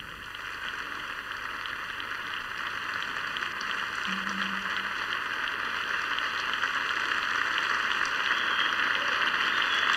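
Audience applauding, a steady patter of clapping that slowly grows louder.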